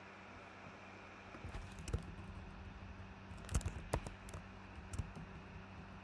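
Computer keyboard typing: scattered keystrokes in short bursts, starting about a second and a half in and loudest around three and a half to four seconds, over a faint steady hum.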